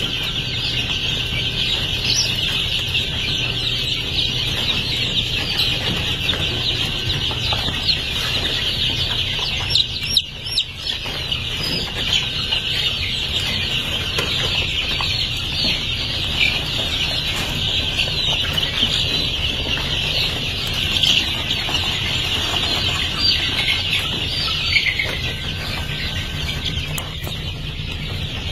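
A brooder full of gamefowl chicks peeping continuously, many high chirps overlapping into one unbroken chorus, over a low steady hum.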